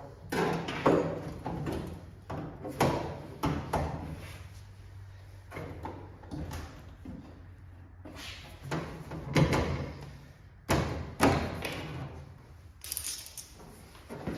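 Irregular knocks and clanks of sheet-metal panels being handled and set against a car body, a dozen or so at uneven intervals, over a steady low hum.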